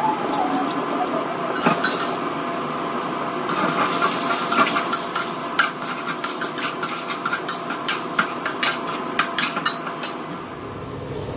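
Metal spatula stirring and scraping food in a stainless steel wok, over a steady frying hiss. From about three seconds in, it clinks against the pan rapidly, three or four strikes a second, for several seconds.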